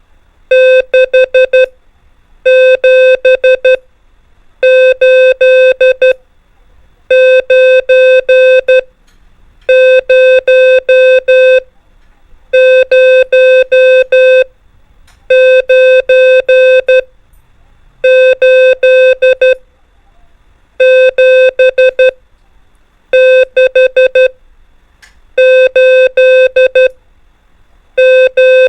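Morse code (CW) practice tone keying the digits: a steady single-pitched beep sent as about a dozen groups of dots and dashes, each group one number, with a short pause between groups.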